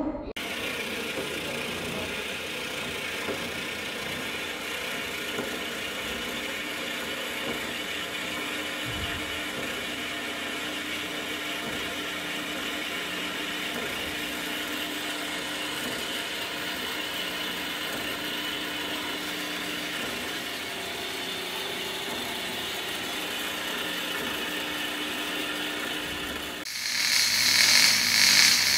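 Horizontal metal-cutting band saw running steadily, its blade cutting through a length of steel pipe. About 27 seconds in it gives way to the louder hiss of welding.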